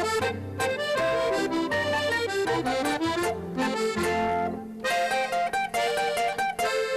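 Traditional folk dance tune led by accordion, with a bass line underneath and a lively, regular beat.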